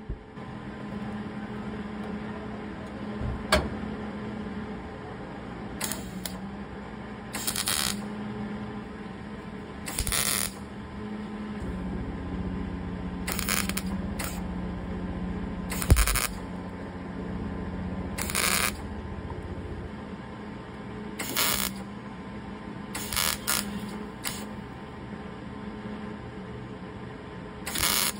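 MIG welder laying short tack welds on a sheet-steel quarter panel: about ten brief bursts of welding noise spaced a few seconds apart, over a steady hum, with a couple of sharp clicks.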